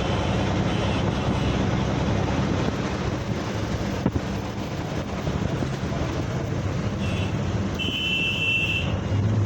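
Steady road traffic and vehicle running noise, with a sharp click about four seconds in and a brief high two-pitch tone lasting about a second near the end.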